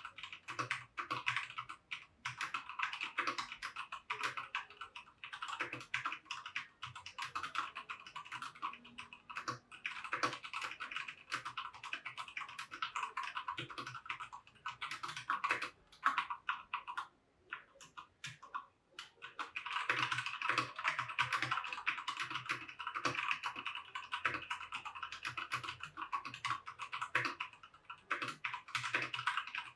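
Keychron K2 Version 2 mechanical keyboard with brown switches being typed on: a fast, continuous clatter of key presses that pauses briefly a little past halfway, then resumes.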